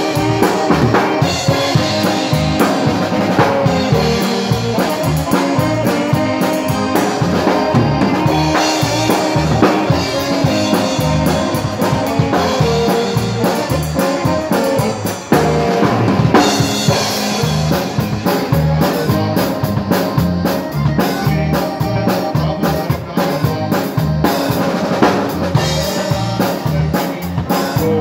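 Live Texas Czech dance band playing with a steady beat, the drum kit (snare, bass drum and cymbals) loud and close up front, with saxophones and accordion in the band behind.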